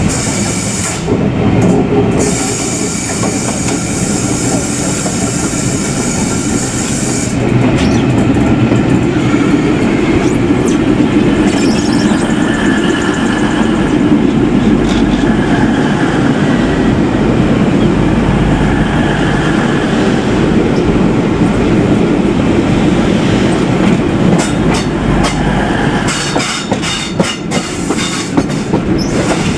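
Railway coach running at speed, heard from its open window, with steady wheel-on-rail noise, while a CrossCountry Voyager diesel train passes close alongside on the next track. A run of sharp clicks comes near the end.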